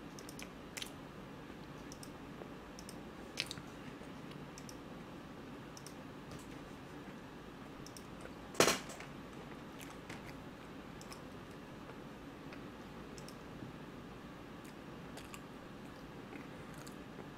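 A person chewing soft bread with the mouth closed, faint wet mouth sounds and scattered small clicks, with one sharper click about eight and a half seconds in.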